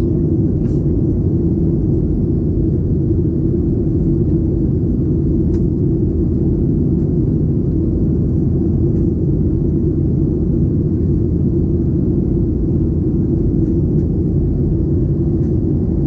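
Cabin noise of a Boeing 737-800 airliner in flight: a loud, steady low roar of its CFM56 jet engines and the airflow over the fuselage.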